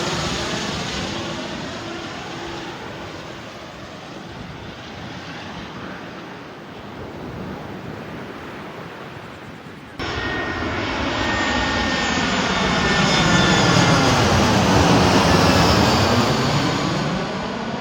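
Jet aircraft engines as planes pass low overhead: one fades away, then after a sudden cut another comes in loud, swells to its loudest a few seconds later with a falling engine whine, and starts to fade near the end.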